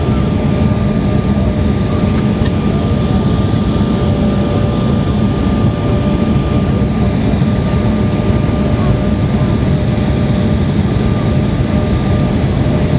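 Cabin noise inside an Embraer 170 airliner on approach: a steady low rumble and rush of air from its General Electric CF34 turbofan engines, with a thin steady whine.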